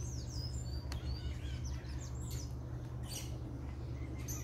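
Small birds chirping: many short, high chirps that slide downward in pitch, several a second, over a steady low rumble, with one faint click about a second in.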